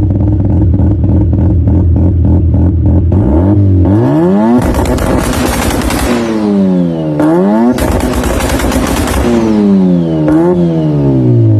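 Turbocharged car engine running steadily, then revved hard three or four times. Each rev rises and falls in pitch, with a loud rushing hiss and a faint falling whistle between revs: turbo flutter on lift-off.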